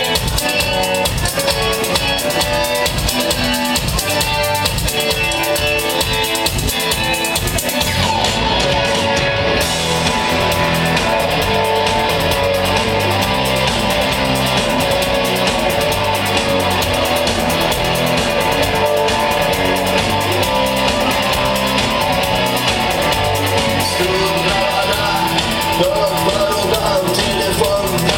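A rock band playing live, with electric guitars and a drum kit. The sound grows fuller about eight seconds in.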